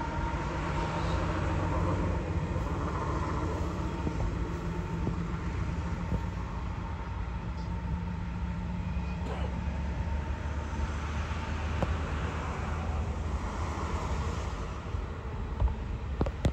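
Aurizon freight train rolling past: a steady low rumble of its wagons on the track, easing slightly near the end.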